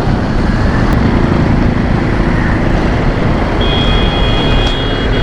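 Steady, loud noise of a motorcycle ride on a wet, flooded street: engine and tyre noise running together without a break. Near the end a high steady tone sounds for about a second and a half.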